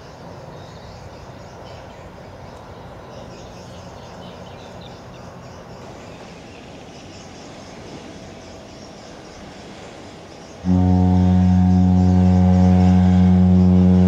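Faint outdoor background, then about ten and a half seconds in a ship's horn sounds one long, deep, steady blast that is still going at the end.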